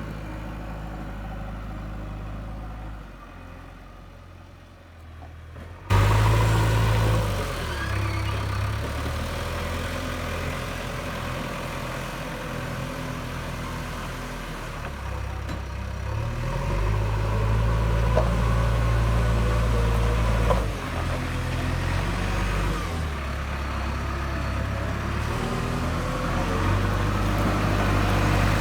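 JCB 3DX backhoe loader's diesel engine running under work, its pitch stepping up and down repeatedly as it is revved and loaded. Loudness jumps suddenly about six seconds in, and two sharp knocks come later on.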